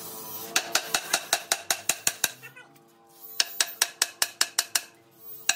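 Two quick runs of sharp metal-on-metal taps, about six a second, with a short pause between them, over background music.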